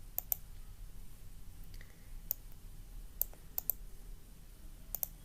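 Computer mouse clicks: about seven sharp clicks, several in quick pairs, over a low steady hum.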